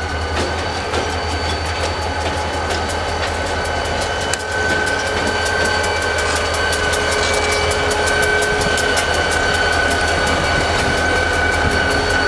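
A pair of diesel locomotives, an NYSW unit and a CSX unit, rolling slowly past with a low engine rumble and the clicking of wheels over rail joints. A steady high-pitched squeal rides over it, getting a little louder about four seconds in.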